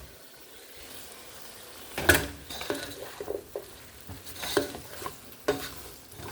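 Chicken, onions and bell peppers sizzling in a pan on the stove, then from about two seconds in a utensil stirring the food and clanking and scraping against the pan several times.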